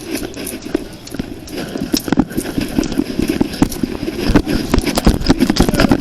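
Knocks and rubbing on a uniform-mounted body camera as the wearer moves, with footsteps: irregular clicks and thumps that grow busier and louder toward the end.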